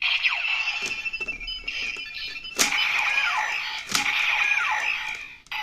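Kamen Rider toy transformation belt with a Ridewatch inserted, its small speaker playing electronic sound effects. The effects are beeping tones and repeated falling chirps over a looping standby tune, with two sharp hits in the middle.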